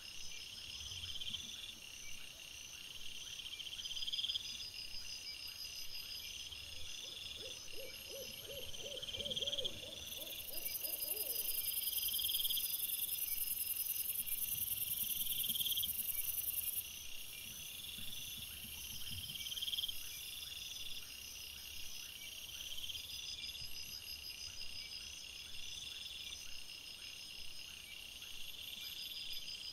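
Crickets and other night insects chirping in steady repeating patterns, with a louder high buzzing insect joining from about ten seconds in for some six seconds. About seven seconds in comes a short rapid series of low pulsed calls, along with a few soft low thumps.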